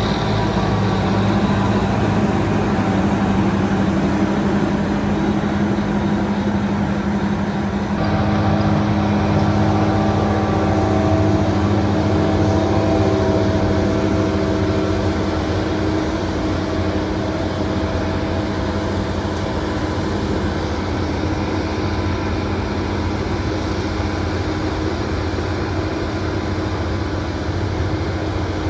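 Heavy harvest machinery running steadily, a diesel engine hum over a broad mechanical drone. The tone shifts slightly about eight seconds in.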